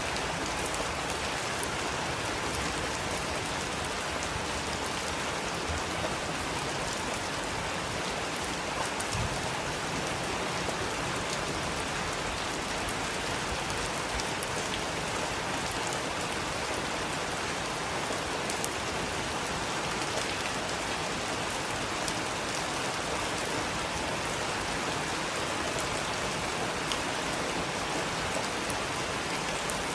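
Heavy rain falling steadily, an even hiss with scattered sharper drop ticks and splashes.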